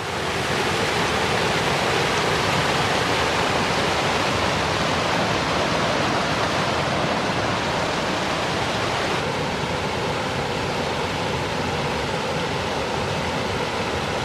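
A small creek waterfall pouring into a pool: a steady, loud rush of falling water.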